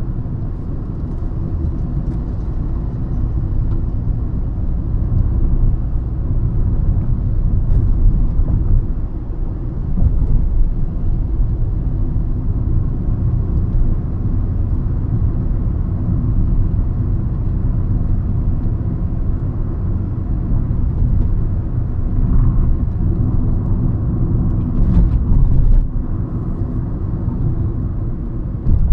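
Hyundai i20 hatchback on the move: a steady low engine and road rumble with some level changes.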